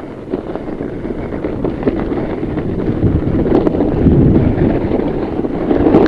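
Wind buffeting a GoPro action camera's microphone while riding a fat bike on a dirt trail, mixed with tyre rumble and a few small knocks.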